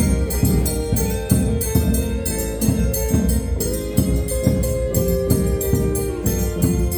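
Instrumental ensemble playing a song arrangement: held melody notes over a steady percussion beat of about three to four strokes a second.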